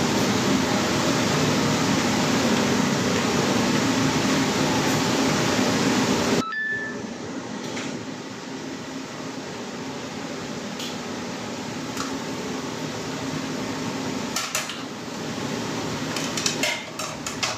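Loud steady fan noise of kitchen ventilation that drops off abruptly about six seconds in, leaving a quieter hum. After that come scattered light clinks of dishes and utensils, with a few quick ones together near the end.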